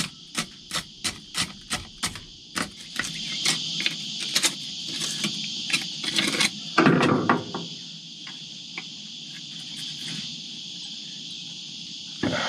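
Screwdriver chipping and scraping barnacles off an outboard's gearbox housing: quick sharp taps about five a second at first, then irregular knocks and a louder scrape about seven seconds in. A steady high insect chorus runs behind.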